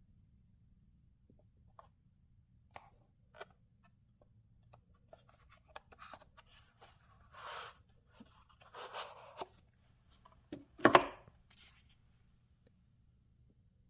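Watch packaging and box being handled: scattered small clicks and taps, a couple of short scratchy rustles, and a sharper knock about eleven seconds in.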